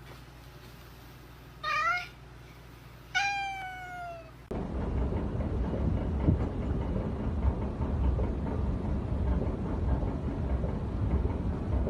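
A cat meowing twice, a short meow followed by a longer one that falls in pitch. After that comes a steady rushing noise with a low rumble and no clear calls.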